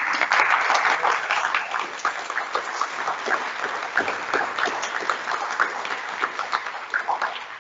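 Audience applauding: many hands clapping together, the applause dying away near the end.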